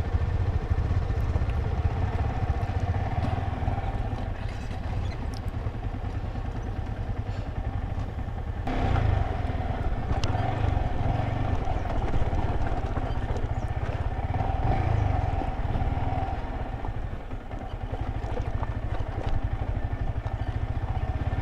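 Motorcycle engine running steadily on a trail ride, its sound shifting abruptly about nine seconds in.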